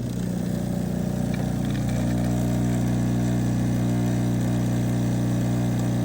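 De'Longhi Stilosa espresso machine running while steaming milk: a steady, loud mechanical buzz with steam hiss over it, starting suddenly and settling into an even drone about two seconds in.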